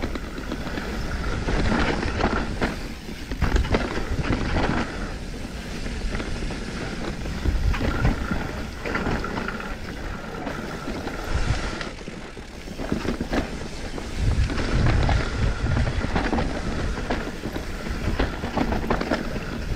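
Mountain bike descending a rough dirt-and-root forest trail: tyres rolling over the ground, frequent rattles and knocks from the bike over bumps, and wind buffeting the microphone.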